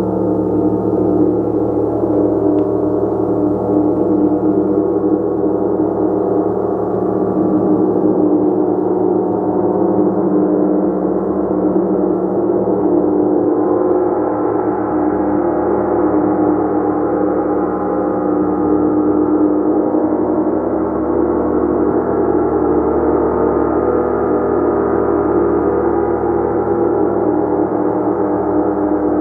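Gong played continuously in a sustained, shimmering wash of many overlapping tones, with no single stroke standing out and the level holding steady.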